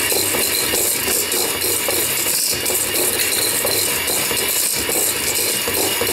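Electric hand mixer running steadily, its beaters working streusel crumb dough (margarine, flour and soy milk) in a stainless steel bowl.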